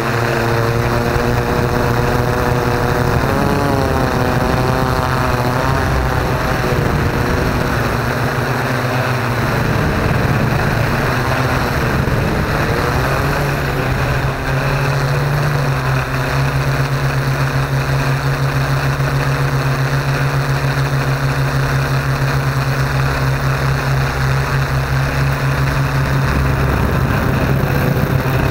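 Yuneec Q500 Typhoon quadcopter's motors and propellers whirring in flight, heard from its own camera: a steady loud hum whose pitch wavers and shifts a few seconds in and again near the middle as the drone manoeuvres.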